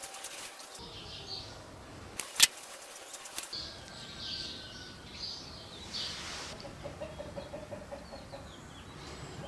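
Birds chirping, with one sharp click about two and a half seconds in and a quick even run of short repeated notes in the second half.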